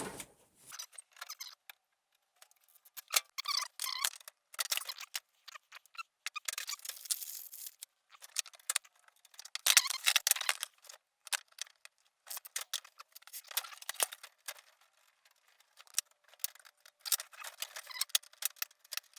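Hand PEX crimping tool squeezing metal crimp rings onto PEX pipe fittings: irregular clicks, creaks and metallic scraping as the tool's handles are worked and the pipe and fittings are handled.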